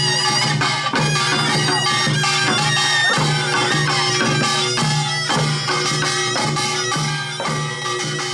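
Korean farmers' music (nongak): a taepyeongso (double-reed shawm) playing a wavering melody over a steady beat of drums and gongs.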